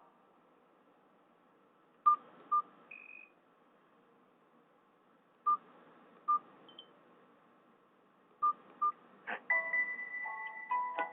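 Nokia 216 feature phone's keypad beeps: three pairs of short single-pitch beeps a few seconds apart. About nine seconds in, a click and then a Nokia E72 ringtone starts playing through the phone's small speaker, an electronic melody.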